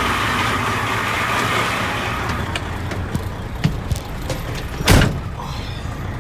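Grain semi truck's diesel engine running steadily, with a hiss during the first two seconds that fades out, a few light clicks, and one heavy thump about five seconds in.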